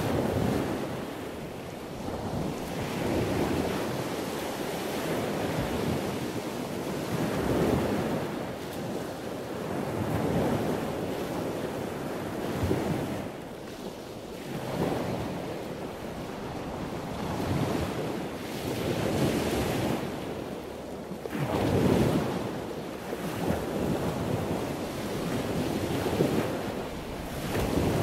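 Ocean surf breaking and washing up the beach in a continuous noisy wash that swells and eases every few seconds, with wind buffeting the microphone.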